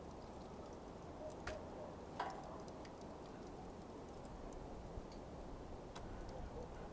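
Smouldering coals crackling: a few sharp, scattered pops and ticks, the loudest about two seconds in, over a faint low steady hiss.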